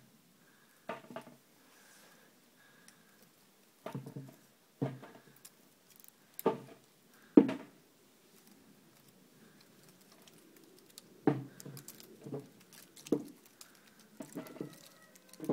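Kitten's claws scratching and scrabbling on the bark of a pear tree as it clings and climbs down the trunk, in short separate bursts. A sharp knock about halfway through is the loudest moment.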